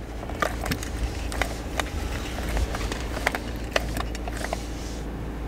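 Sticky cleaning gel being pressed into and pulled from a plastic car cup holder: a run of small clicking, crackling squelches that stops near the end, over a steady low hum.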